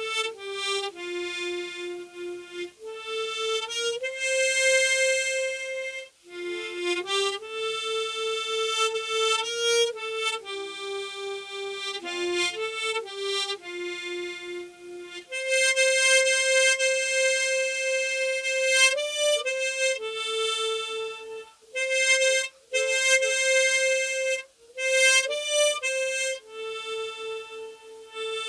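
Solo harmonica with no accompaniment, playing a single-line melody of held notes, with short breaks between phrases.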